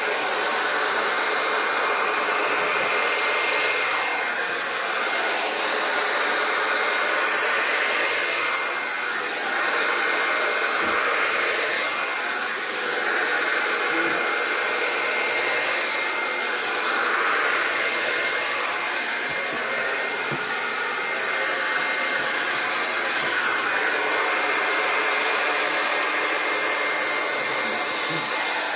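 Handheld hair dryer running steadily, a rushing blow of air with a faint steady high whine, as it blows wet acrylic paint puddles across a canvas. The level rises and dips a little as the dryer is moved.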